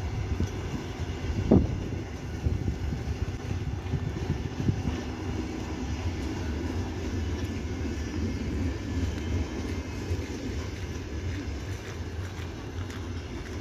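Finnish night train's double-deck sleeping coaches and car-carrier wagons rolling past, a steady low rumble of wheels on rails, with one brief loud knock about one and a half seconds in.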